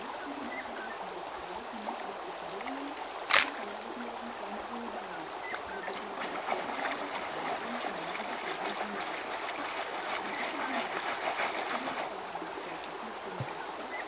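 Gold panning in a shallow stream: a plastic gold pan of gravel is swirled and dipped, water sloshing and splashing in it over the running stream, with a single sharp knock about three seconds in. The splashing gets busier in the second half.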